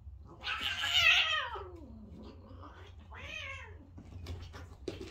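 A cat meowing: one loud, long yowl that falls in pitch, then a shorter meow about two seconds later. A few light knocks follow near the end.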